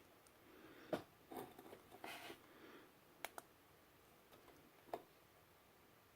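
Near silence broken by a few faint, sharp handling clicks, a close pair just after three seconds, with a little light rustling in between.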